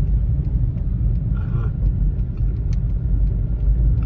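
Steady low rumble inside a car's cabin as it moves slowly through traffic in the rain, with scattered light ticks of raindrops on the windscreen. A brief, muffled mid-pitched sound comes about a second and a half in.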